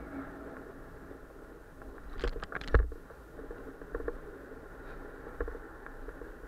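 Downhill mountain bike rolling down a paved street, with steady tyre and riding noise and a cluster of sharp rattles and knocks from the bike about two seconds in, the loudest part, followed by a few lighter knocks.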